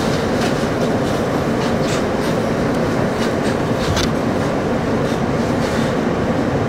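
R160 subway train standing at a terminal platform, its onboard equipment giving a steady hum and rush, with scattered sharp clicks and knocks.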